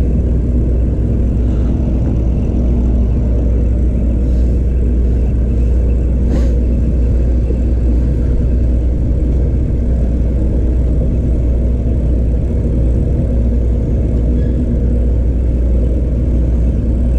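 Steady low rumble with a constant hum from the boat's motor running, and one short click about six seconds in.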